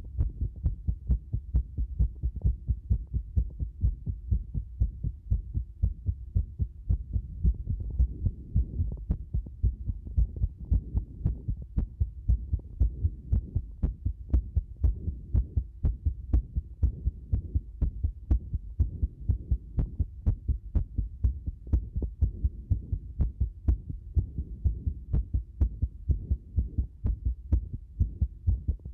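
A person's heart beating, close up: a continuous run of low, dull thumps, a few per second, with an uneven rhythm. The beat is described as greatly disordered, a sign of an irregular heartbeat.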